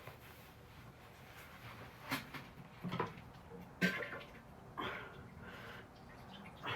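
A bout of diarrhea: about five short, spluttering bursts of gas and loose stool a second or so apart.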